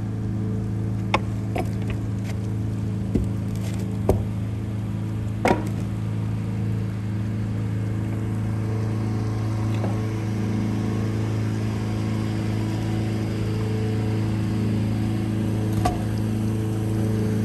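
A boat's engine running steadily at low speed, a constant low drone. A few sharp knocks and clicks come in the first six seconds and once more near the end.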